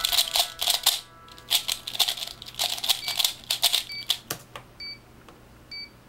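A 3x3 speed cube being turned fast: rapid plastic clicking and clacking of the layers, which stops about four and a half seconds in as the solve ends. A few short high beeps sound about once a second near the end.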